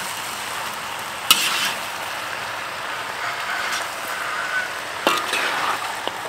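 Chicken legs, mushrooms and onion sizzling in a wok as they are stir-fried with a spatula. The spatula scrapes sharply against the pan twice, about a second in and again about five seconds in.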